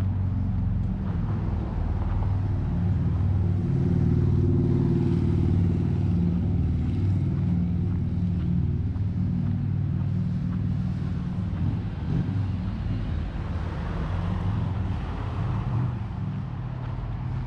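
A motor vehicle engine running steadily with a low, unchanging hum, swelling slightly a few seconds in and then easing.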